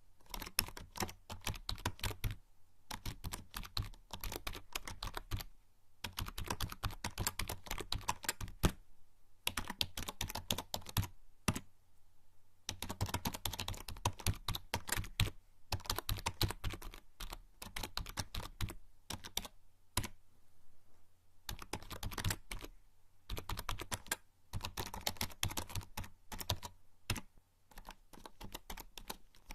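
Typing on a membrane computer keyboard: fast runs of soft key clicks in bursts of a few seconds, with brief pauses between them.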